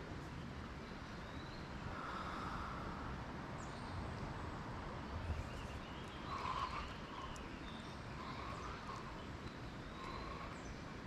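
Outdoor creekside ambience: a steady rushing background with a few faint, short chirping calls scattered through it.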